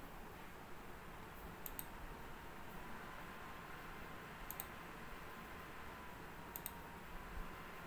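Computer mouse button clicking: three quick double clicks, a couple of seconds apart, over a faint steady hiss with a thin steady tone underneath.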